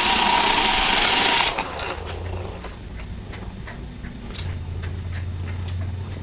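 Roomba robot vacuum running with a loud, even hiss and a steady whine, cutting off abruptly about a second and a half in. A low hum and a string of faint light clicks follow.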